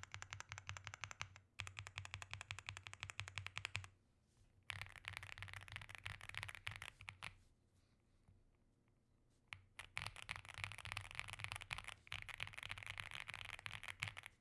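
Aula F75 gasket-mount keyboard with stock LEOBOG Reaper linear switches being typed on fast, in runs of rapid keystrokes broken by short pauses, about four seconds in and again from about seven to nine and a half seconds.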